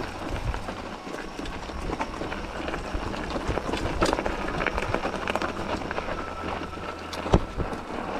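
Mountain bike rolling fast over a rough, stony trail: tyres crunching on gravel and stones, with a constant clatter of small knocks and rattles and one sharp knock about seven seconds in.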